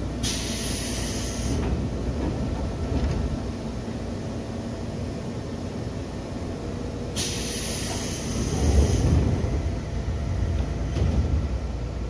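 Two bursts of compressed-air hiss from a Seibu 2000 series train's pneumatic system, each lasting one to two seconds and about seven seconds apart, over a steady low rumble of the train.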